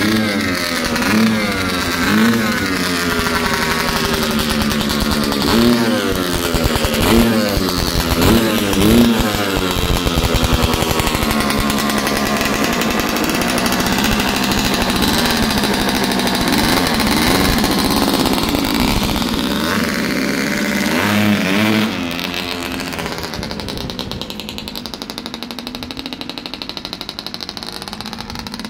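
1992 Kawasaki KX250 two-stroke single-cylinder engine ripped while cold: a string of sharp throttle blips rising and falling, then held at high revs. About three-quarters of the way through the engine note drops and fades away.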